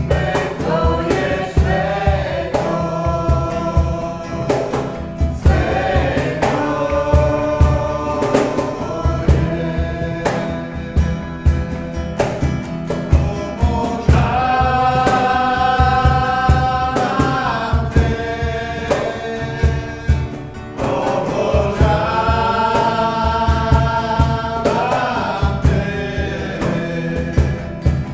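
Worship song sung live by a man and a woman together, accompanied by a strummed acoustic guitar, with a steady beat underneath.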